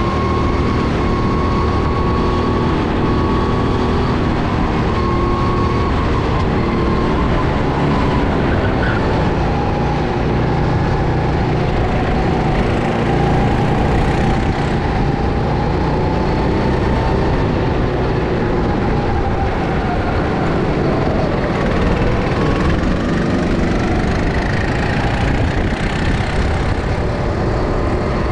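Go-kart engine running at speed, its pitch rising and falling as it revs through the bends and straights, over a heavy rumble of wind on the microphone.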